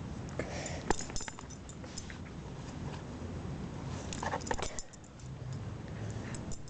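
Puppy making small noises up close while playing and mouthing, with scattered clicks and rustles and a short cluster of noisy bursts a little after four seconds in.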